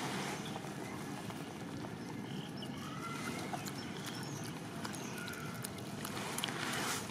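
Steady wind rush on the microphone, with scattered faint clicks and a couple of short, faint chirps about three and five seconds in.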